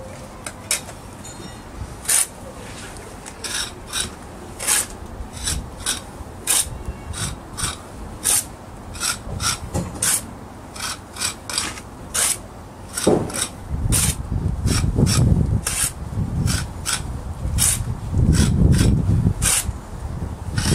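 Steel pointing trowel scraping along the mortar joints of freshly laid brickwork, short irregular rasping strokes about one or two a second, as the joints are struck off. A low rumble comes in twice in the second half.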